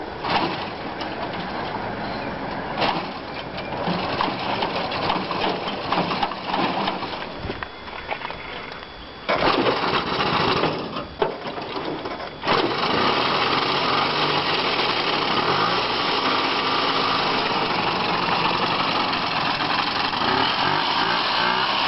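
Small engine of a 1950s miniature car running, uneven at first, then steady from about halfway through. The sound jumps abruptly twice, near the middle.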